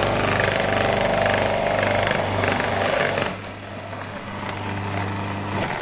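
Electric food processor running with its grating disc shredding carrots, a steady motor hum under a loud grinding. The grinding drops away about three seconds in as the carrots are done. The motor runs on more quietly and stops near the end.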